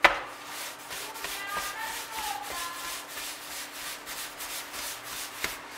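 Hands rubbing and rounding a soft ball of brioche dough on a floured worktop: a steady, quiet scuffing, after a sharp slap right at the start.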